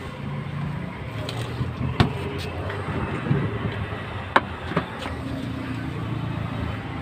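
Steady low traffic rumble, broken by a few sharp clicks and knocks, the loudest about two seconds in.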